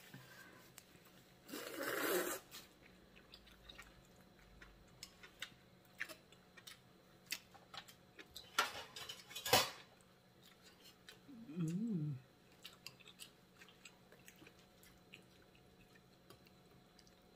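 Eating and table sounds: a noisy slurp about two seconds in, then scattered clicks and clinks of chopsticks and metal tongs against a ceramic bowl and a stainless hot pot, with one louder clink near the middle and a short hummed "mm" soon after.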